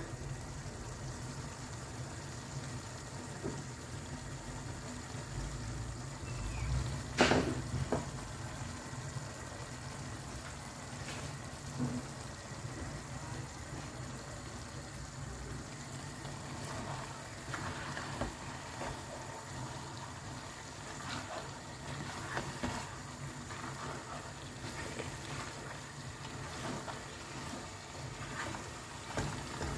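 A pot of soup simmering, with a steady low hum beneath it and scattered small clicks. One sharper knock comes about seven seconds in.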